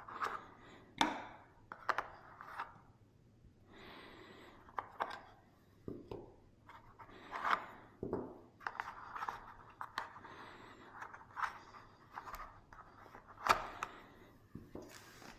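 Packaging and accessories of an unboxed action camera being handled and pulled out: irregular rustles, scrapes and sharp clicks, with several louder knocks.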